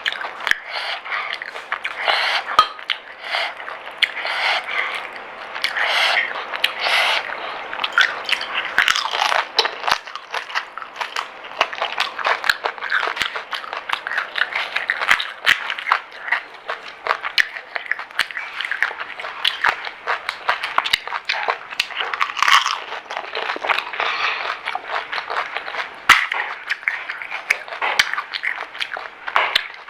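Pani puri being eaten: crisp hollow puri shells crunching and being chewed close to the microphone, many short crunches one after another.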